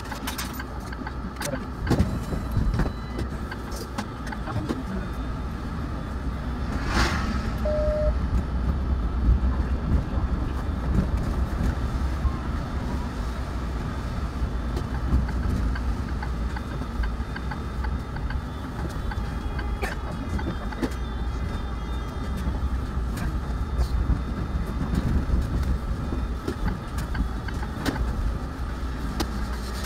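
Interior noise of a city bus driving: a steady low engine rumble with road noise and small rattles, and a brief hiss about seven seconds in.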